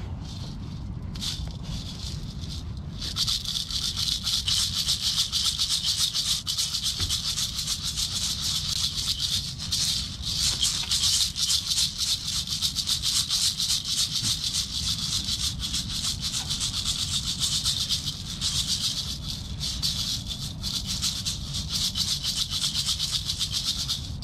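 Two hand-held maraca rattles shaken rapidly and without a break, a dense, dry, high rattle, after a few single shakes in the first seconds. They are a 'sturgeon rattle' shaken to call the fish.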